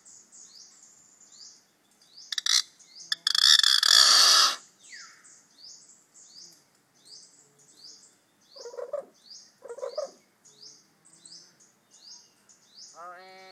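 A mimicking pet bird chirping, with high chirps repeating about three times a second. About three seconds in comes a loud, rough noisy burst lasting about a second. Two short low notes follow later, and a voice-like call starts near the end.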